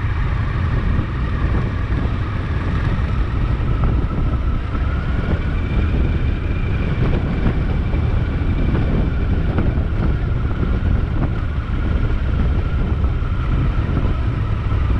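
Motorcycle being ridden at a steady pace: continuous engine and road noise, dominated by a heavy low rumble.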